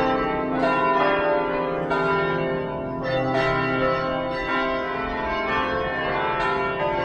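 Carillon bells of the Belfry of Bruges playing a tune, bells struck one after another about once or twice a second, their ringing overlapping: the chime marking a quarter hour, 9:15.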